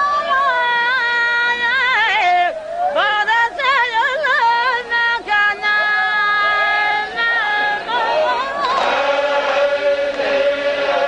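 Zikri chogan devotional singing: a single high voice sings a long, ornamented melody with wavering, trilled notes. About three-quarters of the way in, a group takes up a chant on a steady held note.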